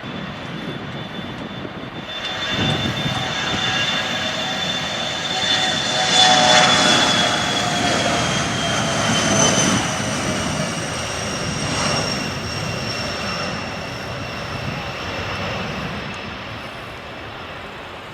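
Airplane engines passing by. A rushing noise swells, peaks about a third of the way in and slowly fades, with high whining tones that drift gradually lower in pitch as it goes past.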